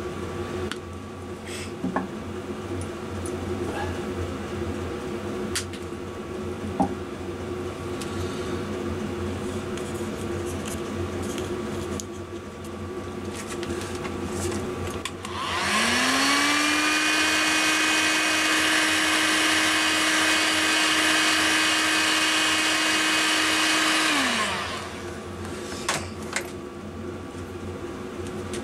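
Small electric motor switched on: it spins up quickly, runs at a steady pitch for about eight seconds, then winds down and stops. Before it there are a few light clicks and handling knocks over a steady background hum.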